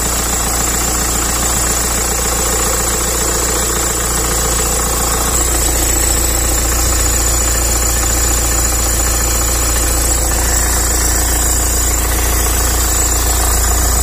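BMW car engine idling steadily, heard close up at its accessory belt drive and tensioner pulley. A thin, steady high-pitched whine runs over the idle.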